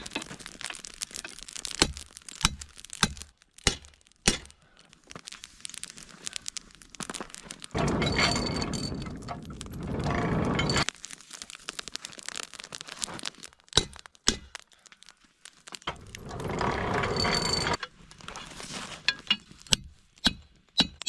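Lumps of charcoal clicking, cracking and knocking together as they are handled and dropped into a forge, with two longer noisy stretches of a few seconds each, the second about halfway through.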